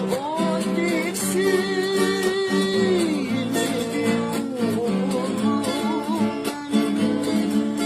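Music: a song with a singing voice over guitar accompaniment.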